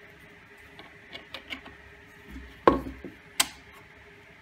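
Workshop handling noise: light clicks of metal screws being handled, then two sharp knocks about a second apart as parts are set against an MDF disc on a wooden workbench.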